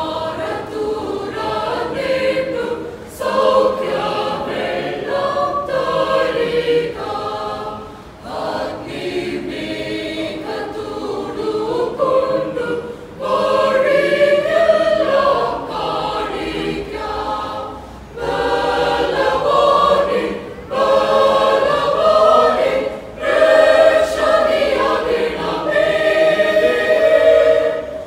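Church choir of women and men singing together, in sung phrases with short breaks for breath between them.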